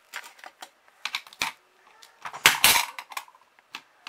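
Plastic pawns clicking and tapping as they are moved along the pegholes of a plastic Pop 'n' Hop game board, with a louder clatter about two and a half seconds in.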